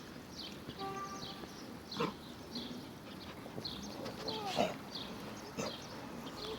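Dog with heartworm disease (dirofilariasis) coughing and hacking in short fits, the exertion cough that heartworm causes; the sharpest coughs come about two seconds and about four and a half seconds in.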